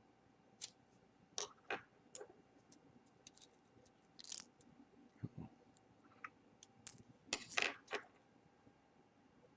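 Faint, irregular clicks and short scrapes of small hand tools and tiny screws being handled while an iPhone 4 is screwed back together, with a cluster of louder clicks about three quarters of the way through.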